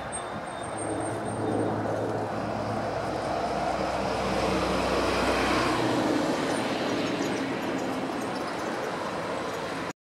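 Rumble of passing motor traffic, one vehicle swelling to its loudest about halfway through and then fading, over steady road noise. A thin high bird note is heard near the start.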